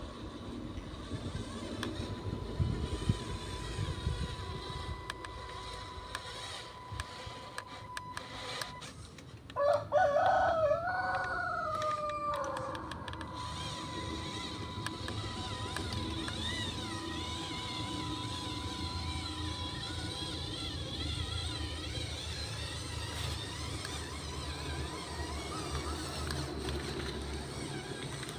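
A rooster crowing once, about ten seconds in, lasting a couple of seconds. It is the loudest sound, over a steady low rumble and a faint steady high tone.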